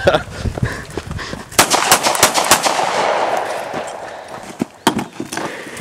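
Small-arms gunfire: a quick string of about half a dozen shots a second and a half in, then another shot near the end.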